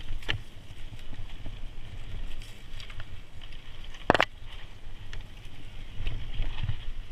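Mountain bike descending a rocky singletrack: tyres rolling over loose gravel with a steady rumble and scattered rattles and clicks, and one sharp knock about four seconds in.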